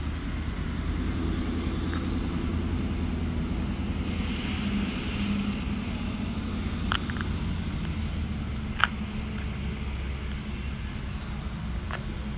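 Steady low rumble of a vehicle running, with a few sharp clicks.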